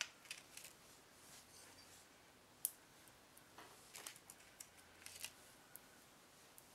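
Faint scattered clicks and short paper rustles of adhesive foam squares being peeled off their backing sheet and pressed onto a small craft heart, with one sharper tick about two and a half seconds in.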